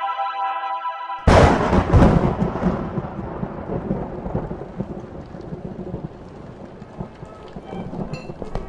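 Sustained music chords cut off about a second in by a loud thunderclap with a second crack just after, which rumbles away into steady rainfall: a thunderstorm sound effect.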